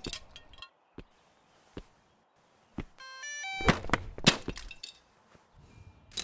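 A cartoon sound-effect sequence of a quadcopter drone being smashed with a baseball bat. A few scattered knocks and a quick run of electronic beeps come first, then two loud breaking crashes about four seconds in, followed by small clinking pieces.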